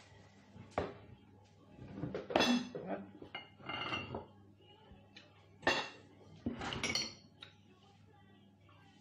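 Plates and cutlery clinking and knocking against each other and the table in a series of separate sharp clinks, the loudest about two and a half and about six seconds in.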